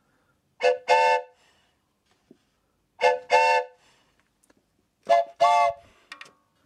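Scaled-down bellows-blown train whistles made for a 5-inch-gauge locomotive, sounding three double toots, each a short blast followed by a longer one. Every blast sounds several notes together as a chord.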